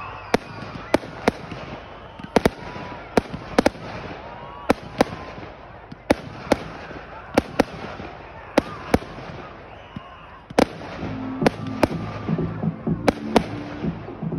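Fireworks display: aerial shells bursting in a quick, irregular series of sharp bangs, often two close together.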